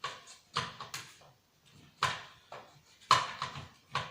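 Irregular sharp clicks, knocks and scrapes of a screwdriver and the set's plastic and metal parts being worked on, while trying to free seized speaker screws.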